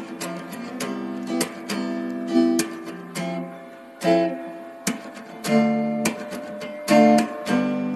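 Background music of an acoustic guitar strummed in chords.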